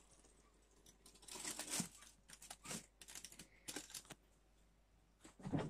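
Aluminium foil crinkling in short bursts as it is pressed over a pot to seal it for dum cooking, with light knocks as a glass lid goes on top and a louder thud near the end.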